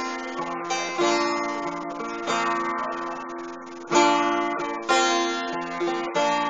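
Acoustic guitar strumming chords, about one stroke a second, each chord ringing out and fading before the next: the instrumental intro of a song before the singing begins.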